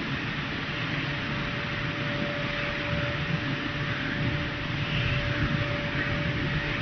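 Continuous multi-layer mesh belt leaf dryer running: a steady mechanical whir with a faint constant tone through it.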